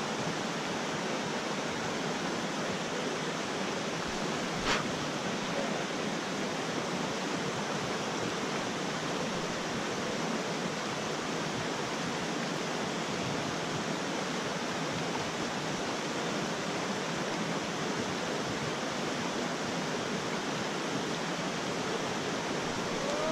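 Rocky mountain creek rushing steadily over cobbles and small cascades. One sharp click about five seconds in.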